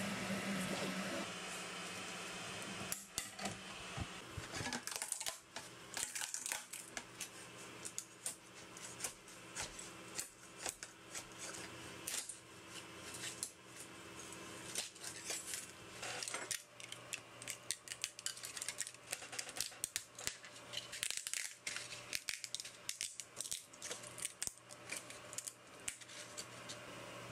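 A 3D printer's motors hum steadily for about the first second. Then come many short sharp clicks and scrapes: a metal spatula prying freshly printed green plastic parts off the print sheet, and the hard plastic parts being picked up and set down on a wooden bench.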